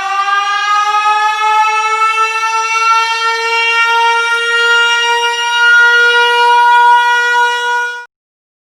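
A siren sound effect: one loud tone that winds up in pitch, holds steady, and cuts off suddenly near the end.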